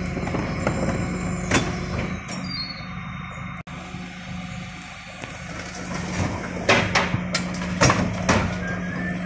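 Refuse truck's engine and hydraulics running with a steady hum while its bin lifters raise and tip wheelie bins, with a run of loud clangs and knocks from about six and a half to eight and a half seconds in as the bins bang against the lifter at the top of the tip.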